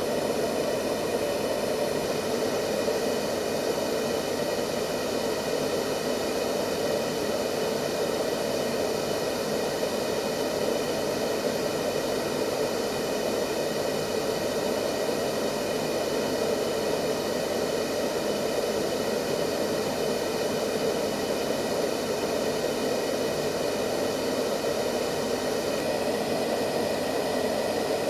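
Steady white-noise hiss used as a baby sleep aid, with a deeper, rushing body in the lower middle rather than a thin hiss.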